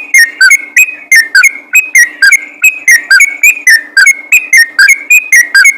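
Yellow-vented bulbul (trucukan) singing a fast, continuous run of short, loud chirping notes, about five a second, recorded so loud that it peaks at full level.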